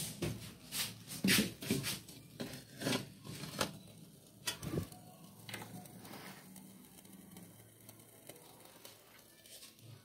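Irregular knocks and clicks of hands handling the metal parts of an antique lamp-heated table fan, about ten of them in the first five seconds, then a quiet stretch.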